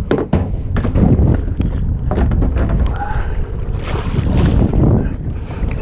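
Wind buffeting the microphone over a steady low rumble aboard a fishing boat on open water, with a few sharp knocks in the first second.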